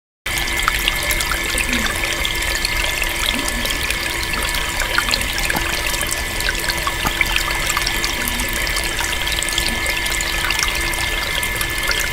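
Water trickling steadily, with a steady hum beneath it. It starts abruptly just after the start and keeps going without change.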